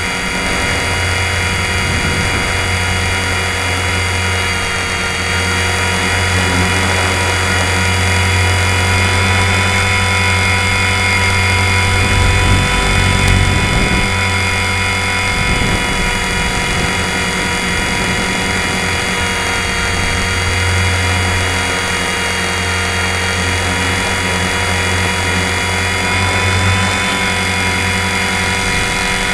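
Align T-Rex 450 Sport electric RC helicopter in flight: a steady, loud whine from the motor and drive, with a low hum underneath. The pitch shifts slightly a couple of times.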